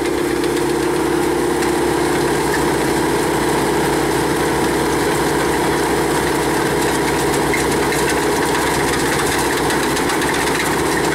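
Engine of a truck-mounted rock-drilling rig, which drives its hydraulic drill motor, running steadily with a constant pitch.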